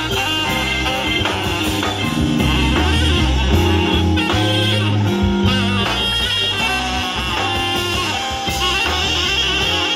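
Live jazz-funk band playing, with a saxophone soloing over a walking bass line and drums.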